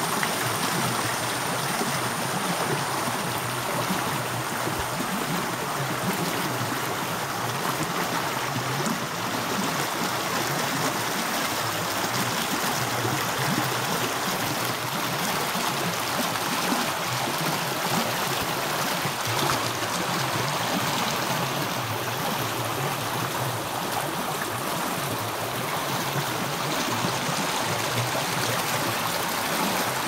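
Shallow rocky stream rushing and splashing over stones in small cascades, a steady, unbroken rush of water.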